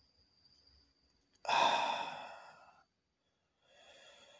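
A man's heavy sigh about one and a half seconds in: a long breathy exhale that starts suddenly and fades over about a second. A quieter breath follows near the end.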